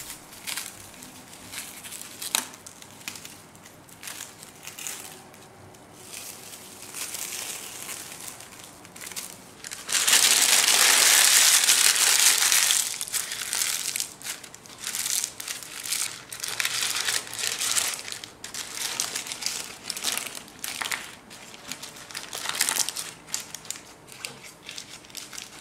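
Crinkling and rustling as plastic cling film is peeled off a glass baking dish and a sheet of wet baking paper is crumpled, wrung out and spread over the pumpkin pieces. About ten seconds in there is a loud, steady rushing noise that lasts about three seconds.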